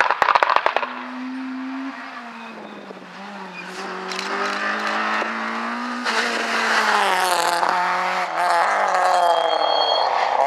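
Rally cars at speed: a run of sharp exhaust cracks from a Mitsubishi Lancer Evolution rally car as it pulls away, its engine note fading. Then a Citroën Saxo rally car's engine comes up hard, rising and falling through gear changes, with a brief tyre squeal near the end as it turns through a bend.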